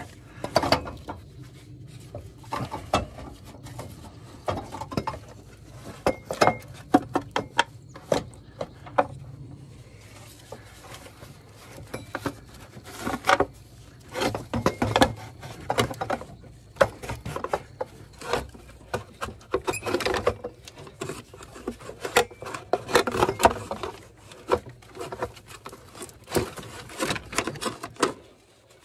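Irregular metal clanks, knocks and scrapes as an automotive AC compressor is wrestled out of a cramped engine bay, bumping against brackets, hoses and refrigerant lines.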